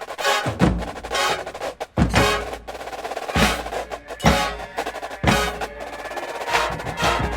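Drum and bugle corps percussion playing: snare drums and rolls punctuated by heavy bass drum hits every second or so, over sustained pitched tones from the rest of the ensemble.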